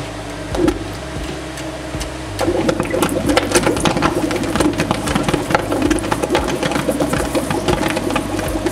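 Underwater stick (shielded metal arc) welding: the electrode's arc strikes against the submerged steel plate about two and a half seconds in, then burns with a dense, steady crackle and sputter of fast clicks as the rod melts under the water. Before the strike there is a steady hum.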